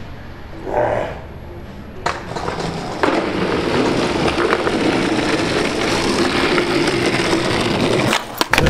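Skateboard rolling along the ground: a sharp clack about three seconds in, then steady wheel roll, with a few more clacks near the end.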